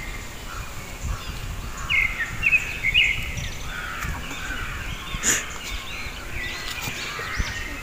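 Birds calling outdoors: a run of short chirping calls about two to three seconds in, over a steady low background rumble. A single sharp click comes a little past five seconds.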